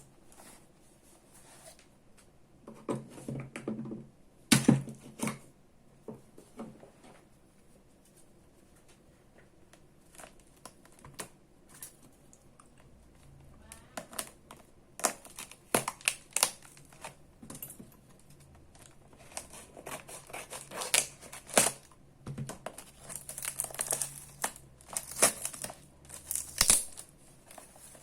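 Packaging being handled and opened by hand: irregular crinkling and tearing with scattered sharp clicks and knocks. The handling comes in bursts, quieter for a while in the middle and busiest near the end.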